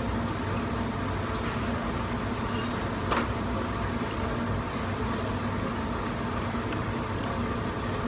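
Steady mechanical hum and hiss, with one short click about three seconds in.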